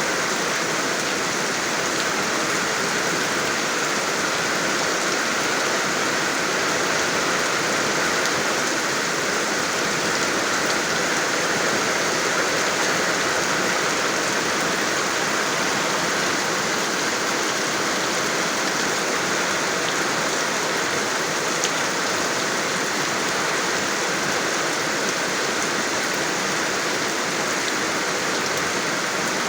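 Steady rain falling and pattering on surfaces, an even unbroken hiss of many drops.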